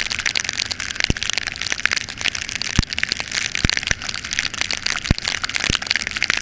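Heavy rain: a dense, steady crackle of drops striking close by, with a handful of heavier single hits.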